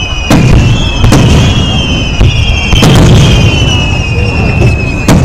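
Aerial fireworks shells bursting: about five loud booms a second or so apart over a steady low rumble, with a high, slightly falling whistle running under them.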